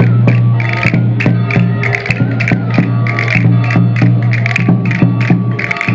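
Traditional folk dance music: a steady low drone under a quick, even beat of sharp clicking strikes, about four a second.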